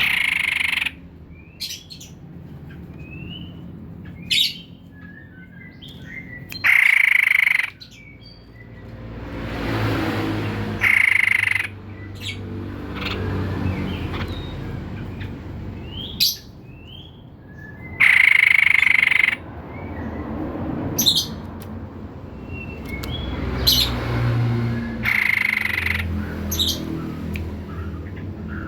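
White-breasted babbler calling: a loud harsh chatter about a second long comes roughly every six to seven seconds, with short sharp notes and small chirps in between, over a low background rumble.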